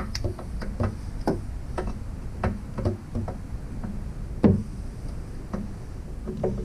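Irregular metal clicks and knocks of a socket and extension being worked onto a rear shock mounting bolt, with one louder knock about four and a half seconds in.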